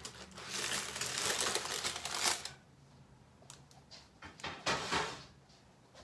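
Parchment paper rustling and crinkling as a freshly baked sheet cake on its parchment is pulled off a cookie sheet onto a wire cooling rack. It stops about two and a half seconds in, and a few light clicks and one sharper knock follow.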